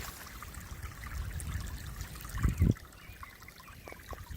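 Rainwater runoff trickling through a roadside drainage ditch, over a low rumble, with two loud thumps about two and a half seconds in.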